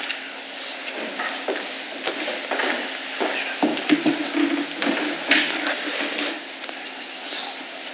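Irregular rustling and crackling with scattered small clicks, with a short low tone near the middle: clothing and handling noise picked up by a presenter's headset microphone as she moves about.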